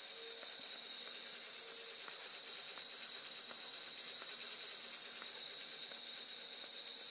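Steady high-pitched whine from a Tacon Bigfoot 15 sensorless brushless outrunner motor and its ESC, driven at very low throttle to turn a crawler wheel slowly.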